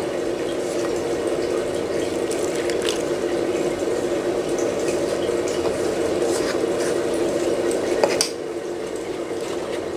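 A steady rushing noise that cuts off about eight seconds in, over light clicks and scrapes of a metal spoon stirring flour and milk into batter in a plastic bowl.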